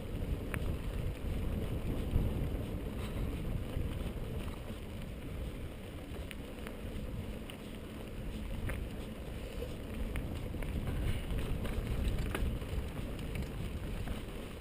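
Mountain bike rolling along a dirt singletrack: steady low wind noise on the microphone, with scattered clicks and rattles from the bike over the bumps.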